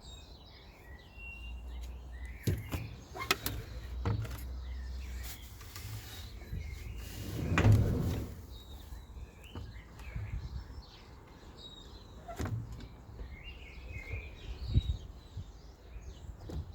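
Small birds chirping, with scattered knocks and clicks and one louder dull thump about eight seconds in, over a low rumble.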